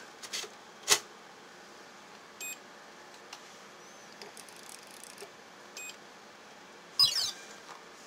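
Tajima embroidery-machine control panel giving two short beeps a few seconds apart as its keys are pressed. A sharp click comes about a second in, and a brief rattling burst, the loudest sound, comes near the end.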